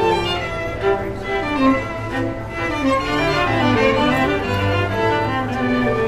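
Classical music played by bowed strings, violins carrying a moving melody over cello.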